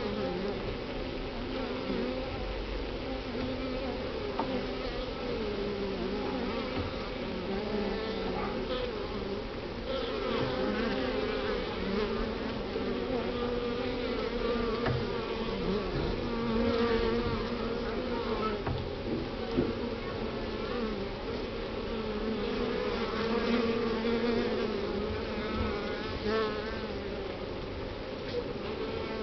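A honey bee colony humming on its comb inside a top-bar hive: a steady, dense hum of many bees, with single buzzes wavering up and down in pitch as bees move close by.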